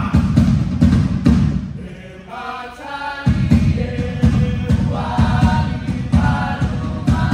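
A group of voices singing in chorus over fast drumming. Near the middle the drumming drops out for about a second, leaving the voices alone, then comes back in.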